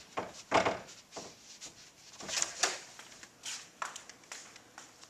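A wooden door's handle and latch clunking as it is pulled open, a rattle and rub as the door swings, then a few footsteps walking out through the doorway.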